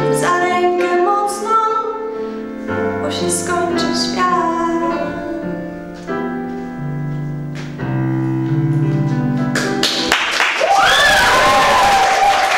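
Instrumental backing music playing out the end of a song, held notes changing every second or so, stopping about ten seconds in. Applause then breaks out, with a voice calling out over it.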